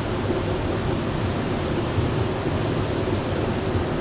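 Steady rushing of jungle creek water over rocks and falls, an even unbroken roar.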